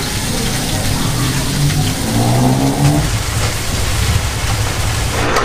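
A vehicle engine speeding up, rising in pitch between about one and a half and three seconds in, over a steady hiss.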